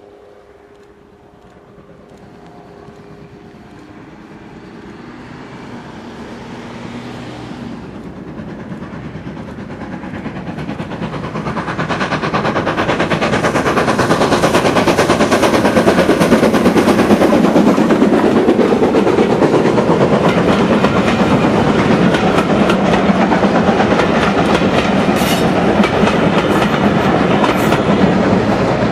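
Steam locomotive hauling a train of coaches approaches and passes close by, working hard with a heavy exhaust. The sound grows steadily louder over the first dozen seconds, then stays loud with the clatter of wheels over rail joints as the coaches go past.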